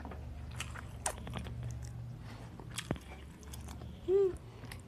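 Close-up eating sounds of finger-millet (kodo) dhido being chewed, with scattered short mouth clicks. A brief hum of a voice about four seconds in.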